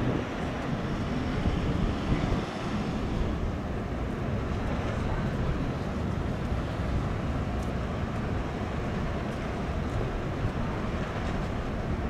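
Steady low rumble of a cruise ship's machinery as it comes into port, mixed with wind on the microphone.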